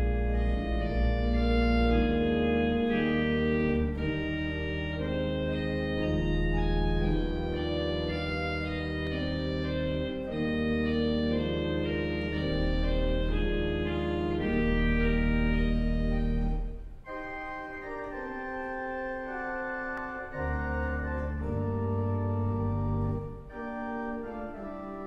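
Church organ played from a three-manual console: slow, sustained chords moving from one to the next over deep bass notes. About seventeen seconds in the bass stops and the playing goes on more quietly.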